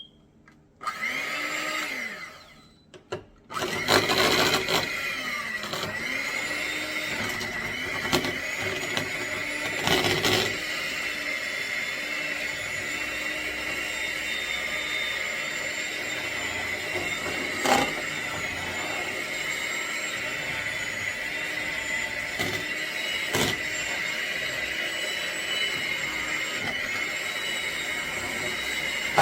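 Electric blender switched on in a short pulse about a second in, then running steadily from about three and a half seconds on, blending the wet ingredients for banana bread (mashed bananas, butter, vanilla).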